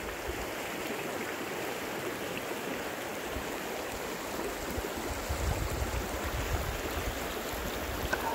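Water of a partly frozen mountain river running steadily, a continuous rushing, with a heavier low rumble in the second half.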